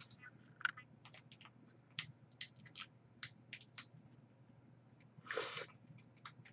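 Small plastic jello-shot cup being peeled open: a run of faint crinkles and clicks from the plastic lid and cup. Near the end comes a brief wet slurp as the gelatin shot is sucked from the cup.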